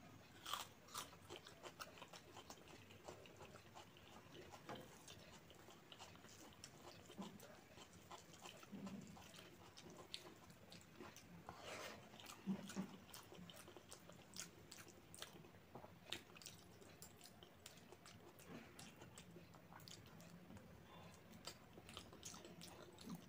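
Quiet, close-up chewing and biting: crisp crunches about a second in as a raw onion slice is bitten, then ongoing wet chewing of rice and curry with small mouth clicks.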